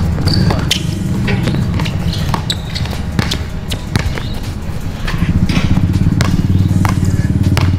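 Basketball bounced and dribbled on an outdoor hard court, irregular thuds, over a steady low rumble that grows louder about five seconds in.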